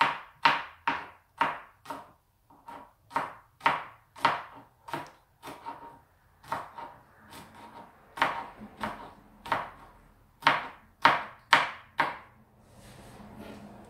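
Kitchen knife chopping chilies on a cutting board: sharp knocks of the blade on the board, about two a second, softer for a couple of seconds midway. The chopping stops shortly before the end.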